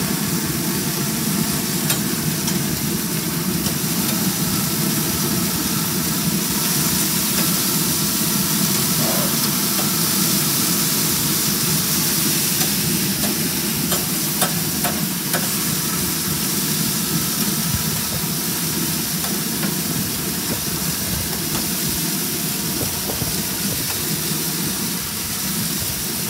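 Hamburger patties and hot dogs sizzling steadily on a grill. A few light clicks of a metal spatula and fork against the grate come about halfway through.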